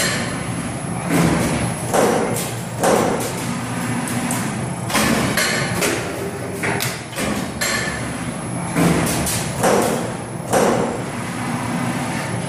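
CNC transformer lamination cut-to-length line for silicon steel cutting laminations: the shear and notching/punching press strike in repeated heavy clunks, roughly one a second at uneven spacing, over the line's steady running hum.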